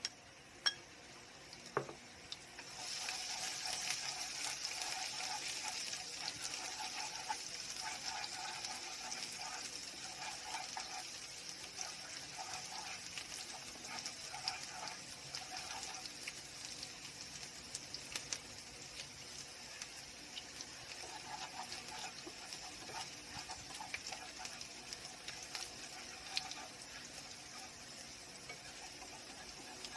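Chopped garlic sizzling in hot oil in a frying pan, crackling as it fries toward golden. A couple of light clicks come first, then the sizzle starts about three seconds in and slowly quietens.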